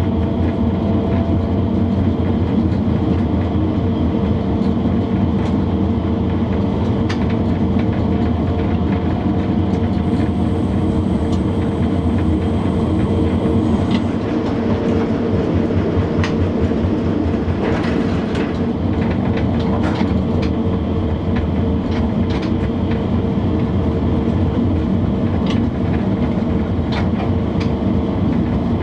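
Cab sound of a 1958-built DB class E10 electric locomotive running along the line: a steady hum and rumble, with irregular clicks of the wheels over the track.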